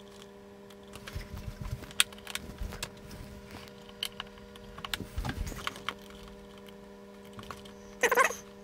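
Irregular clicks of a computer keyboard and mouse over a steady electrical hum, followed by a brief louder burst near the end.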